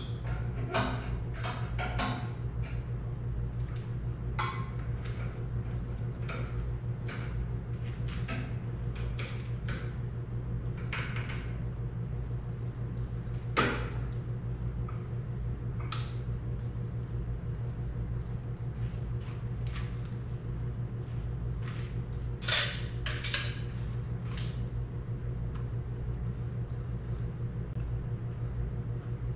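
Hand tools and metal parts clinking and knocking now and then against a Farmall Super C's engine as it is worked on, with a sharper clank about 13 seconds in and a quick cluster of clinks past the 22-second mark, over a steady low hum.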